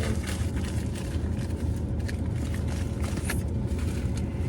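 Steady low rumble with scattered light clicks and rustles of a small gift box being handled.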